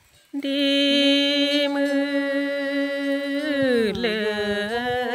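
A single voice chanting a Karen tha poem. It comes in after a moment of silence on one long held note, then slides down in pitch and wavers in a slow melodic line.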